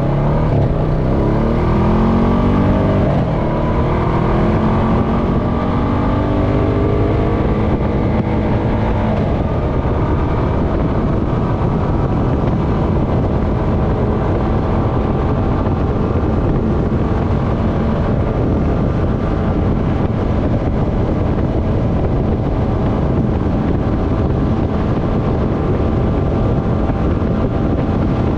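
Honda Foreman ATV's single-cylinder four-stroke engine pulling away, its revs climbing in several rising sweeps over the first nine seconds or so as it speeds up. It then settles into a steady drone at cruising speed.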